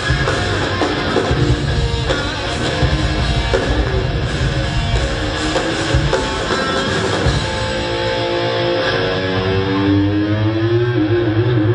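Live rock band playing loudly: electric guitars over a drum kit. After about seven seconds the drums thin out, leaving held guitar notes that bend and waver in pitch.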